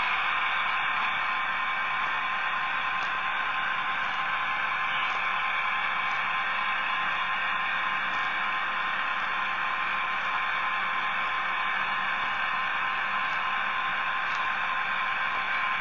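Steady hiss with a thin, even whine and a few faint scattered ticks, picked up by a small camera riding on a moving model locomotive.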